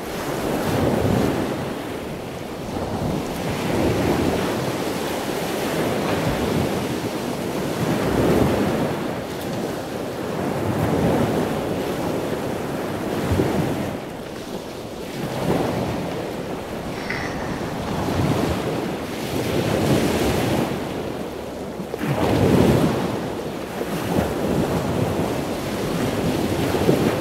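Rushing, wind-like noise that swells and fades every two to four seconds.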